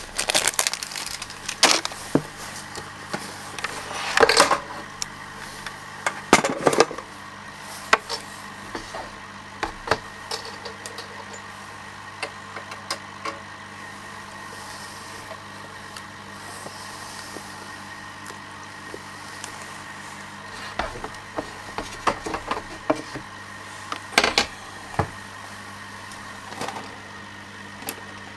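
Scattered knocks, clicks and rustles of hands handling the guppies' bag at the aquarium, in bigger clusters about four, six and a half, and twenty-four seconds in, over a steady hum.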